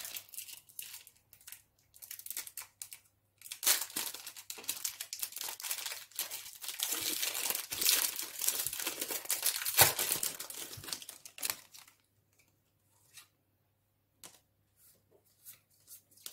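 Foil wrapper of a Pokémon booster pack crinkling and being torn open by hand, loudest in the middle, with one sharp crackle about ten seconds in. After that, only a few faint clicks as the cards are handled.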